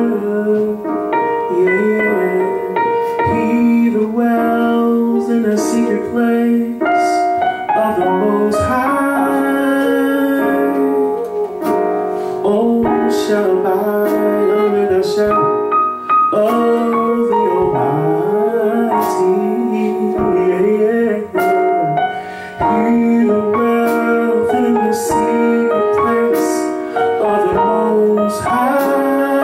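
A man singing a slow worship song into a microphone, with keyboard accompaniment; the voice holds long notes that slide in pitch.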